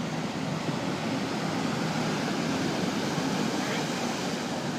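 Ocean surf washing in: a steady rushing noise that swells slightly in the middle.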